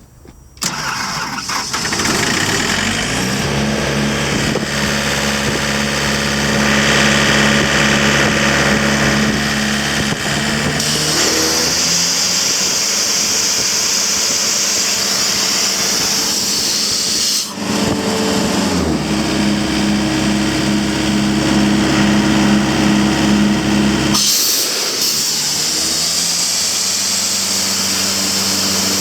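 Sullivan 185 portable air compressor's engine starting about half a second in and then running, its speed stepping up and down a few times. A loud high hiss joins about a third of the way through.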